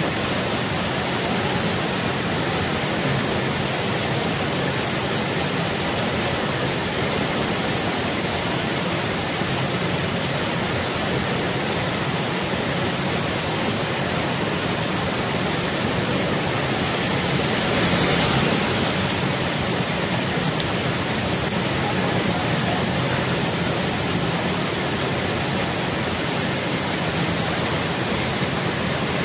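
Heavy rain pouring steadily onto a wet road, with one brief louder swell a little past halfway.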